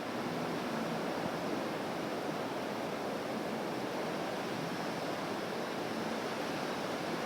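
Ocean surf, a steady even wash of waves breaking.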